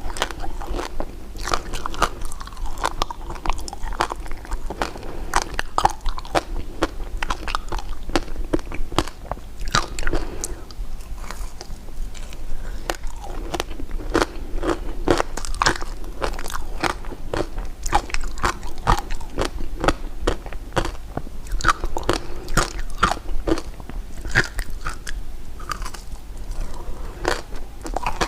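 Close-miked eating of candy: a continuous, irregular run of sharp crunches and bites mixed with wet chewing.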